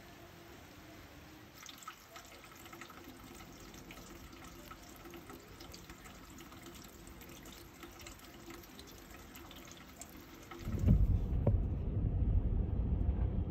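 Light drizzle falling and dripping, a faint patter of fine drops. About eleven seconds in it cuts to the louder low rumble of a car cabin.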